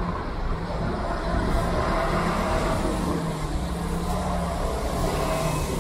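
Diesel city bus engine running close by: a steady low drone with a hum in the middle range.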